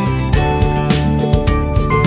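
Background music: an upbeat instrumental track with plucked guitar-like notes over a steady beat.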